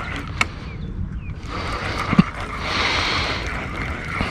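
Wind rumbling on the microphone over the wash of water at the shoreline, with a sharp click about half a second in.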